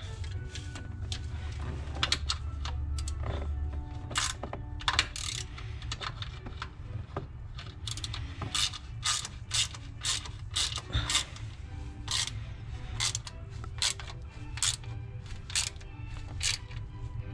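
Hand ratchet wrench clicking in repeated short strokes as nuts are run down and snugged on the clutch assembly.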